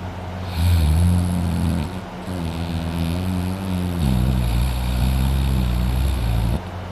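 A man snoring loudly in deep sleep: long, low snoring breaths one after another, the pitch wavering up and down through each.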